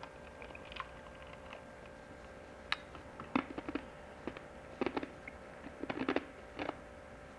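Light clicks and taps of kitchen utensils, sparse at first and then in small clusters from about a third of the way in, over a steady faint hum.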